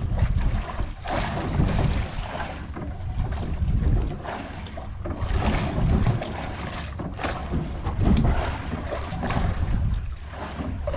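Wind gusting on the microphone over open sea: a heavy low rumble that swells and drops every second or two, with sea water washing against the side of the boat.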